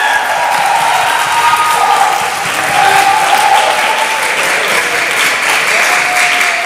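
A crowd applauding steadily, many people clapping their hands at once.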